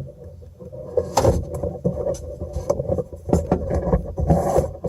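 Irregular clicks, knocks and rubbing from handling close to the microphone, over a steady low hum.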